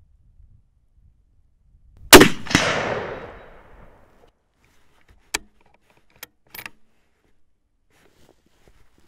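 A single unsuppressed shot from an Accuracy International AXMC sniper rifle chambered in 7.62 mm / .308, about two seconds in, its report echoing away over about two seconds. A few sharp metallic clicks follow as the bolt is worked to eject the case and chamber the next round.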